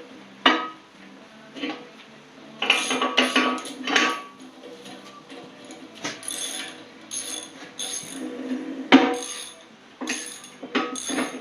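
Steel parts clanking and clinking at an irregular pace, with sharp ringing metal strikes, the loudest about half a second in and near nine seconds in.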